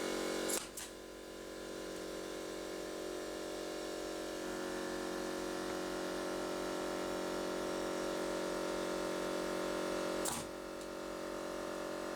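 Air compressor running with a steady electric hum. Sharp shots from the pneumatic stapler firing staples into pine wood: a quick pair about half a second in and one more near the end.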